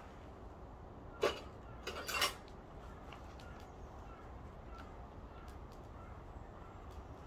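A split firewood log set down onto a small metal fire tray: one sharp knock about a second in, then a short clatter of wood against metal shortly after.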